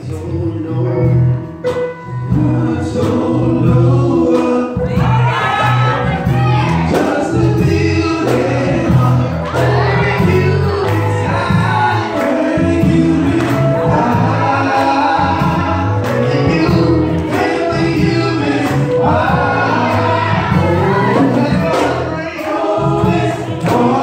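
Live gospel music: men's voices singing into microphones over a changing bass line, guitar and a drum kit.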